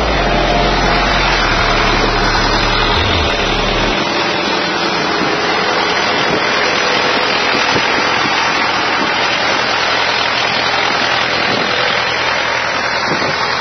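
Massey Ferguson tractor's diesel engine running steadily under load as it pulls a disc plough through the soil, heard close up as a loud, dense noise. The deepest rumble drops away about four seconds in.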